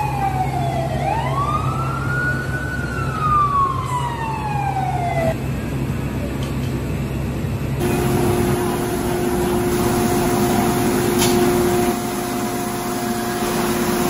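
Fire engine siren wailing, sweeping down in pitch, swinging up and sliding down again, over a low engine hum; it stops about five seconds in. After that a steady noisy drone with two held tones carries on.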